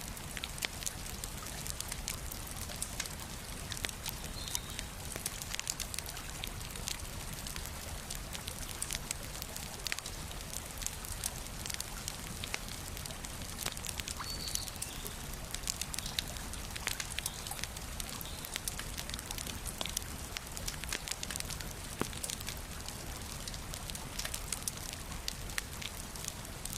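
Wood fire burning, crackling and popping with many irregular snaps over a steady low rumble.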